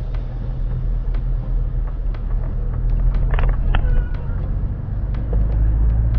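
Vehicle running with a steady low rumble, scattered clicks and rattles over it, and a short high-pitched cry about three seconds in.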